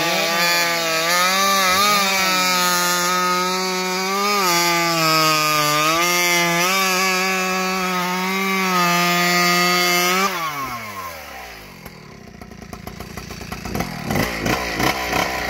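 Ported and piped Farmertec G660 Pro two-stroke chainsaw running at full throttle while cutting through a large log, its pitch dipping a little as it loads in the cut. About ten seconds in the throttle is released and the revs fall away to a low idle, then they pick up again in uneven bursts near the end.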